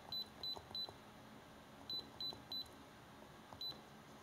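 Handheld iCarsoft i930 diagnostic scan tool beeping as its keypad buttons are pressed to scroll through menus: short high beeps, three quick ones, then three more, then a single one near the end.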